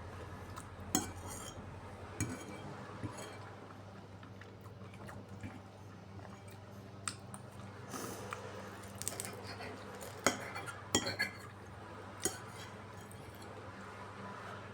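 Cutlery clinking and tapping against a dish, a dozen or so sharp irregular clicks, over a low steady hum.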